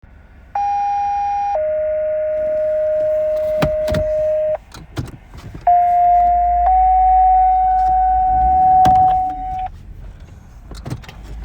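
Two sets of two-tone fire dispatch alert tones over a radio, paging the stations to the call. The first set is a higher tone for about a second dropping to a lower tone held about three seconds; after a short gap, the second set is a one-second tone stepping up to a slightly higher tone held about three seconds.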